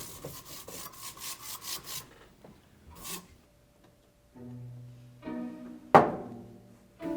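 A quick, even run of rasping ticks for about two seconds, then low bowed strings of a film score come in and hold sustained notes, with a sharp struck hit about six seconds in.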